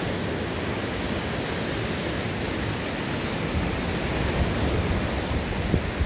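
Rough sea surf breaking on the beach, a steady rush of waves mixed with wind rumbling on the microphone.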